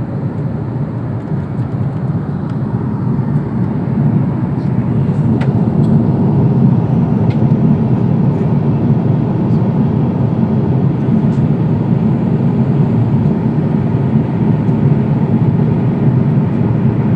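Steady low rumble of airliner cabin noise in flight, the engines and rushing air heard from inside the cabin at a window seat. It grows slightly louder about four seconds in.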